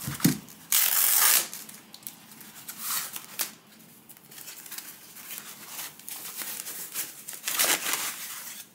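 Packing tape tearing and a thin plastic foam wrap crinkling as it is peeled and pulled off a packaged device, in irregular bursts, the loudest about a second in.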